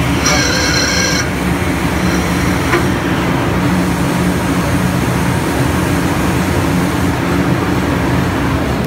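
Alfa Laval FOPX 613 fuel oil separator running with its bowl removed, the vertical spindle spinning: a loud steady mechanical hum and rush, with a high whine for about the first second. The noise comes from the vertical shaft, which the owner traces to its worn spindle bearings.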